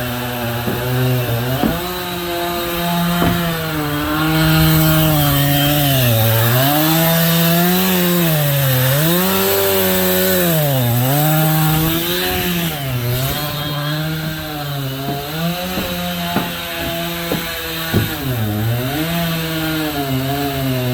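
Chainsaw on a homemade chainsaw mill ripping lengthwise through a walnut log. The engine revs up about two seconds in, then its pitch repeatedly sags and recovers as the cut loads it. It runs a crosscut chain, which is not made for ripping.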